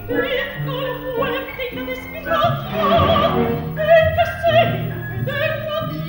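A woman singing opera in a high voice with wide vibrato, sustaining long notes, over orchestral accompaniment holding low notes.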